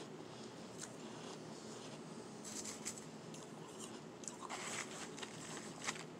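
Close-miked mouth crunches of powdery shaved ice being bitten and chewed: a handful of soft, crisp crunches at uneven intervals, the sharpest one near the end.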